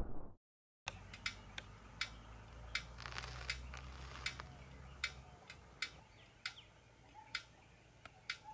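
Faint, sharp ticks, irregular at about one or two a second, over a quiet background with a low hum in the first half.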